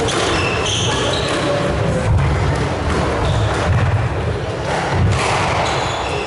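Squash rally: the ball struck by rackets and thudding off the court walls, with hits about once a second.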